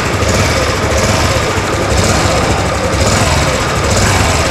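Honda Super Cub 110's 109 cc air-cooled, fuel-injected four-stroke single-cylinder engine idling steadily, running smooth and even.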